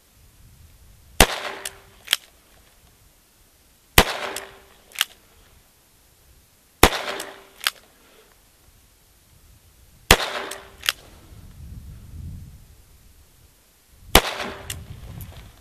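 Five shots from a single-action .45 Colt revolver, fired one at a time about three to four seconds apart. Each sharp report is followed under a second later by a fainter second crack.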